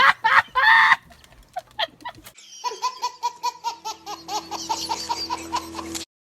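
Loud laughter right after a joke's punchline, lasting about a second. After a short lull, a different recording cuts in at about two seconds: quick, evenly repeated pulses over a steady hum, which cuts off abruptly near the end.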